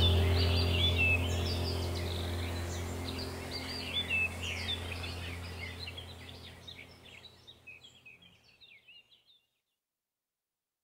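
Many small birds chirping in the evening over a steady low hum; everything fades out to silence about nine seconds in.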